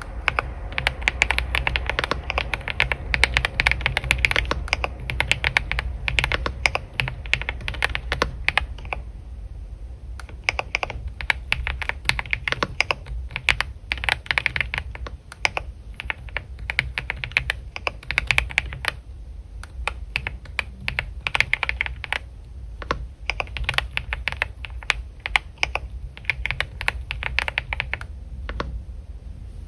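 Typing on a computer keyboard: rapid runs of key clicks in bursts of a few seconds, broken by short pauses.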